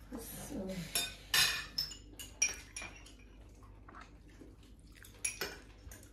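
Table knives and cutlery clinking and scraping against ceramic plates and bowls as butter is spread, a scattering of sharp clinks, the loudest about a second and a half in and another just after five seconds.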